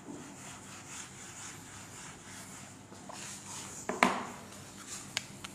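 A handheld felt eraser rubbed back and forth across a whiteboard in repeated wiping strokes, then a sharp knock about four seconds in and two light clicks near the end.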